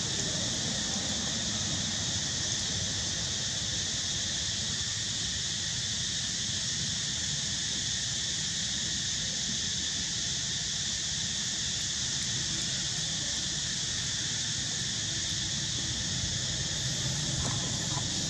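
Steady, high-pitched drone of an insect chorus, unchanging throughout, over a low rumble.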